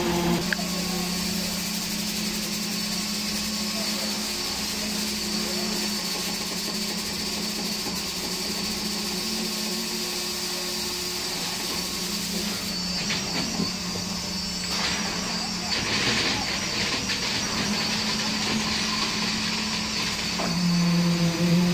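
Hydraulic spider concrete placing boom running with a steady low hum and a high hiss as the boom slews and unfolds. Irregular rattling and scraping join in about two-thirds of the way through, and the hum grows louder near the end.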